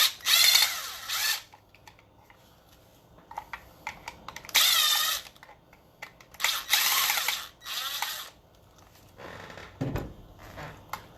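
A small power tool running in three short bursts, a high whine that wavers in pitch, with scattered clicks between and a low thump near the end.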